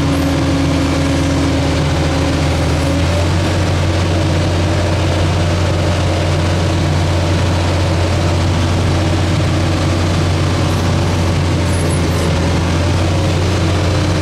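Wheel loader's diesel engine running steadily under way, heard from inside the cab, a loud even low drone.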